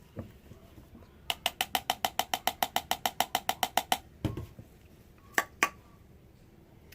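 A quick run of about twenty evenly spaced ratcheting clicks, some seven or eight a second, lasting under three seconds, then a soft knock and two sharp clicks.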